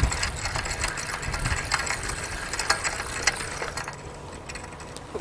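Spinning fishing reel being worked while a hooked mullet is played on a bent rod: a mechanical whirring with many small irregular clicks.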